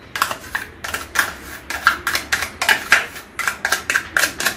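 Metal spoon scraping and clicking inside a plastic Danette caramel pudding cup as it is scooped out: a quick, irregular run of short scrapes, about three a second.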